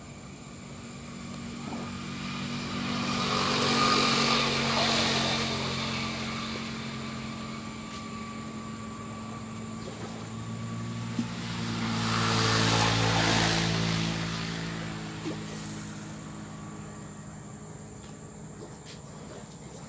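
Two motor vehicles passing by on a road, one after the other: each engine sound swells up and fades away, the first loudest about four seconds in, the second around thirteen seconds in.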